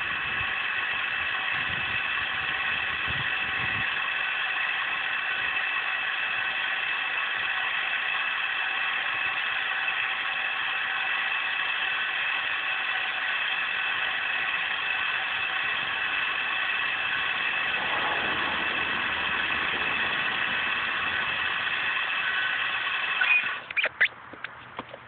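The electric drive motor of a homemade screwdriver antenna running steadily with an even whine, moving the coil section along the mast. It cuts off abruptly near the end with a few clicks.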